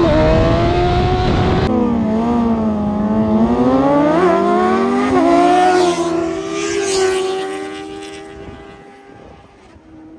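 Superbike inline-four engines accelerating hard through the gears. The pitch climbs and drops back at each of several upshifts, then holds level and fades away after about eight seconds.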